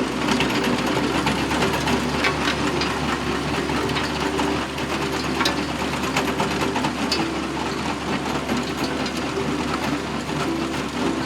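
A vehicle engine running steadily with a fast, continuous mechanical rattle.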